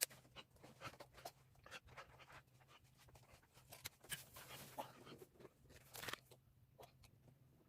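Faint, scattered clicks and rustles over a low, steady hum.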